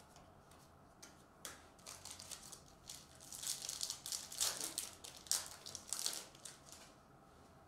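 Foil trading-card pack wrapper being torn open and peeled back by hand, crinkling in a run of crackles that is loudest a little past the middle and stops about a second before the end. A few short rustles come before it.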